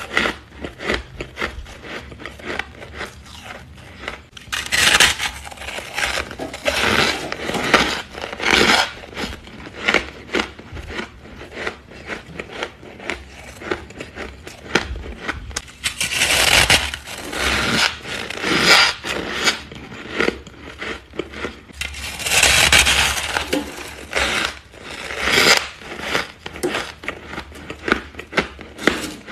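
Thick freezer frost being scraped and crunched: many irregular crisp crunches, with a few longer scraping sounds of about a second each.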